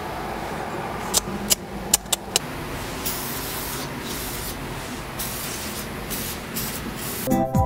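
Aerosol cleaner sprayed through a straw nozzle onto a clutch pressure plate in a series of short hissing bursts, cleaning its surface. A few sharp clicks come before the spraying starts.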